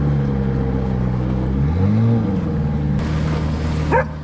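Small outboard motor on a jon boat running under way, its pitch rising and then falling briefly about two seconds in. A dog yips once near the end.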